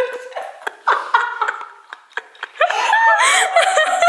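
A woman giggling and laughing in short, high-pitched bursts.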